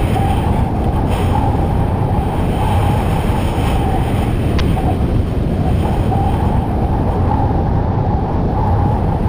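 Loud, steady rush of wind over the camera microphone mixed with a snowboard sliding and hissing through powder snow on the way downhill.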